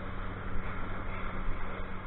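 Motorboat underway at speed: a steady engine hum under the rush of wind and water spray.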